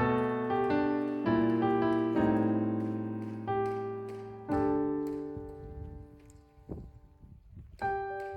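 Background piano music: slow sustained notes and chords, fading away briefly before a new phrase begins near the end.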